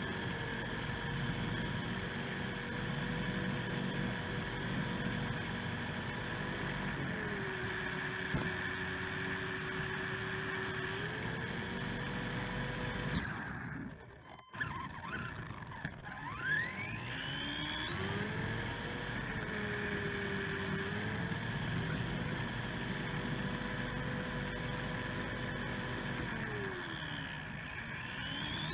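Helion Animus 18SC RC short-course truck driving fast on pavement: a steady electric-motor and gear whine over rough tyre noise. The whine drops and climbs back in pitch several times as the throttle eases and picks up. About halfway through it briefly goes almost quiet, then sweeps up again as the truck accelerates.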